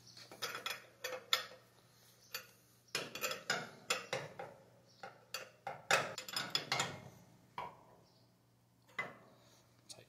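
Open-end wrench on a boiler's new low water cutoff probe as it is tightened into its fitting: irregular metallic clicks and clinks in several short flurries as the wrench is turned and reset on the fitting.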